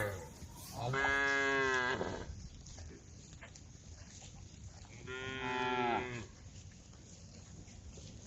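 Cows mooing: the end of a loud moo right at the start, then two moos of about a second each, one about a second in and one about five seconds in, each dropping in pitch as it ends.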